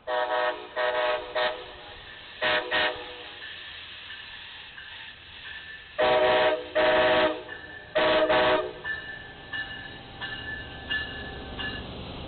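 Amtrak passenger diesel locomotive's air horn sounding a string of short blasts in clusters, loudest about six to nine seconds in, as the train passes.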